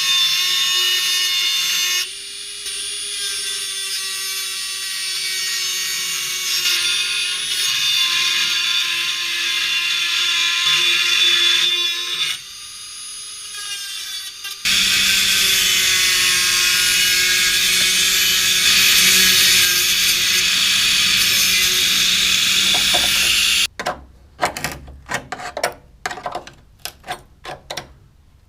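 Electric drill whining in long high-pitched runs as it cuts out the stitch welds holding the rusted outer sill of a 1970 VW bay-window bus. The drill drops off briefly about twelve seconds in and stops for good a few seconds before the end, giving way to scattered light knocks and clicks.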